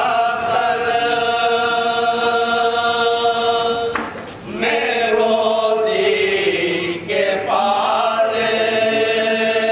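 Men chanting a Muharram mourning lament (noha) in long, drawn-out held notes, with short breaks about four and seven seconds in.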